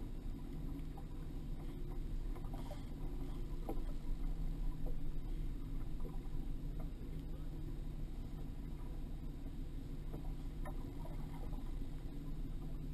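Steady low rumble aboard a small fishing boat on open water, with a few faint clicks and knocks.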